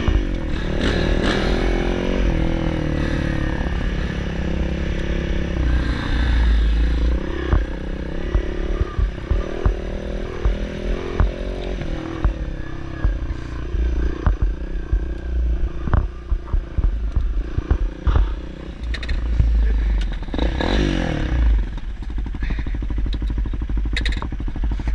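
Dirt bike engine being ridden along a trail, revving up and down, with frequent short knocks and clatter.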